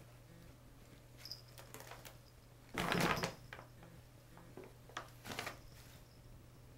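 A brown paper bag rustling and crinkling as two cats play in and over it, with the loudest crackle about three seconds in and a shorter burst around five seconds.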